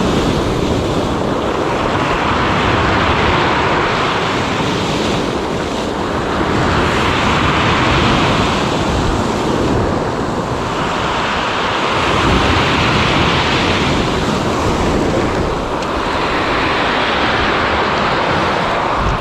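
Sea waves breaking and washing up the shore, surging every few seconds, with wind buffeting the microphone.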